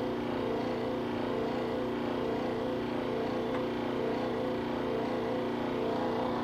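Refrigerant recovery machine's compressor running with a steady hum, drawing R134a refrigerant out of a car's AC system at its maximum vacuum.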